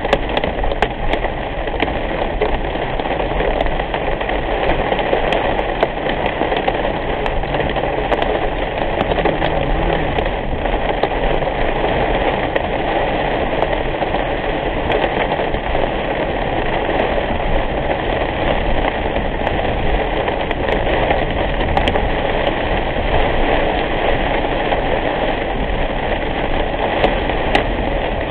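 Heavy rain beating on a car's windshield and roof, heard from inside the moving car, with steady road and engine noise beneath. Scattered sharp ticks come from drops striking the glass.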